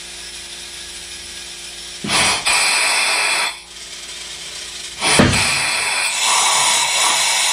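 Compressed air hissing into the hydraulic cylinder of a home-built log splitter to drive the ram in. Two long bursts of hiss, the first about two seconds in and the second from about five seconds on, opening with a low thump, over a steady hum.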